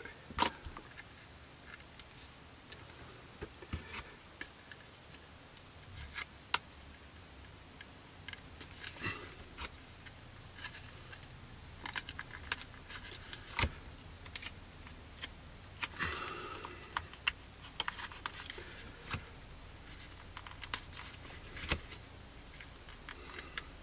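Plastic model-kit parts being handled and pressed together by hand, with scattered light clicks and short rustles as masking tape is pressed on; the sharpest click comes a bit under half a second in.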